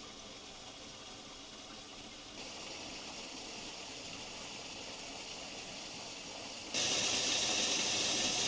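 Steady rush of water running from a partly frozen waterfall. It gets abruptly louder twice, about two and a half seconds in and again with about two seconds left.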